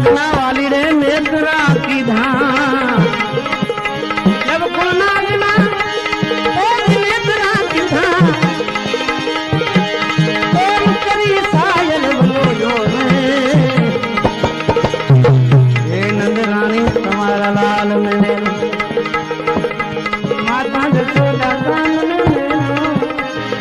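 Gujarati devotional bhajan music: tabla keeps up a rhythm under an ornamented, sliding melody line.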